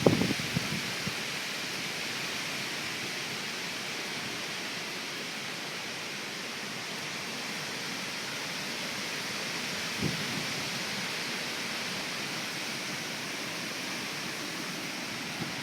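Hurricane rain pouring down in a steady, even hiss, with brief gusts of wind buffeting the microphone at the start and about ten seconds in.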